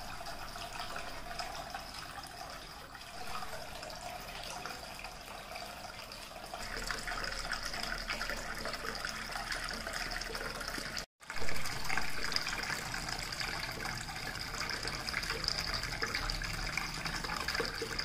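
Cement tabletop waterfall fountain running: a thin stream of water pours from a tilted pot into a bowl and trickles down into a pebble basin, a steady splashing trickle. It cuts out for a moment about eleven seconds in and comes back slightly louder.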